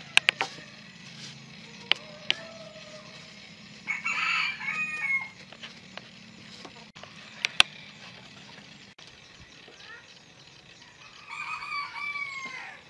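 A rooster crowing twice, once about four seconds in and again near the end, each crow ending in a falling note. A few sharp clicks come near the start and again in the middle.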